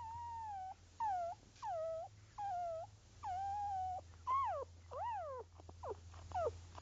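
Newborn puppies squeaking and whimpering: a run of high, wavering squeals about half a second each, becoming sharper rising-and-falling yelps from about four seconds in.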